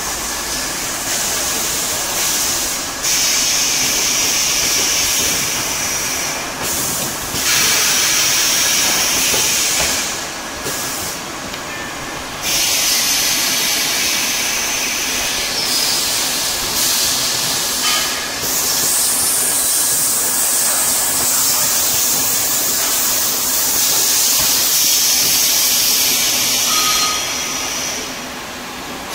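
Automatic high frequency welding machine for shoe bags running: a loud hiss that comes and goes in stretches of a few seconds, over a steady machine hum.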